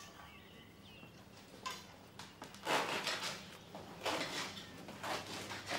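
Kitchen handling sounds at a counter: a few short bursts of clatter and rustling from about halfway in, such as dishes and utensils being moved.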